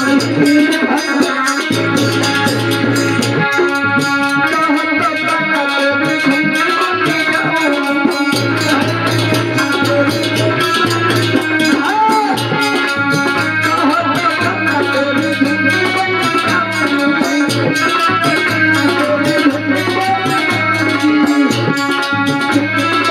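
Live Hindi devotional bhajan: a male voice singing over instrumental accompaniment with steady hand percussion and a shaker-like rattle.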